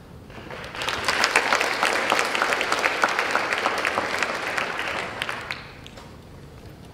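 Audience applauding: a dense patter of many hands clapping that swells in about half a second in and dies away a little before six seconds.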